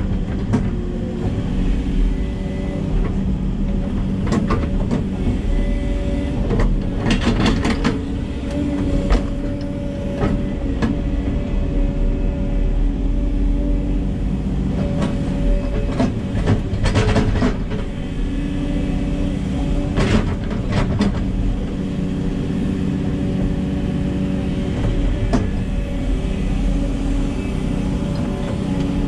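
Hidromek 140 LC excavator's diesel engine and hydraulics running steadily under work, heard from inside the cab, with a drone holding several steady tones. Scattered clanks and knocks break in every few seconds as the bucket and boom work the soil.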